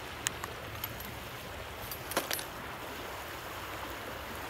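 Steady rush of fast river current, with a few sharp small clicks near the start and a short clicking rattle about two seconds in.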